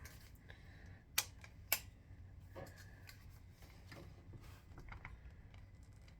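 Two sharp metallic clicks about half a second apart, with light handling rustle: the legs of a clamp-on barrel bipod being folded up and snapping into place.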